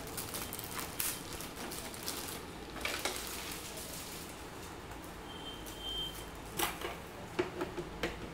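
Scattered plastic clicks and knocks from handling, as a keyboard's plastic music rest is fitted into its slot, with a small cluster of knocks near the end.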